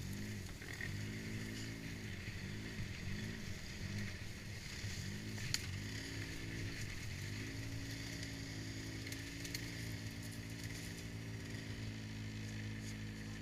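ATV engine running, its pitch rising and falling several times as the throttle is worked, then holding steady for the second half. A single sharp click about five and a half seconds in.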